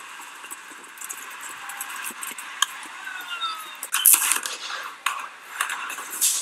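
Skateboard wheels rolling with a steady hiss, then sharp clacks and clatter of a board hitting and landing on ramps, loudest from about four seconds in.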